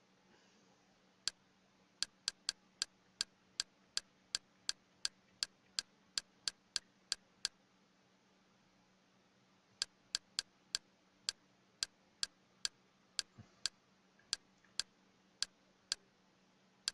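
Sharp computer clicks from menu navigation, repeated evenly about three times a second in two long runs with a pause of about two seconds between them. A faint steady low hum lies underneath.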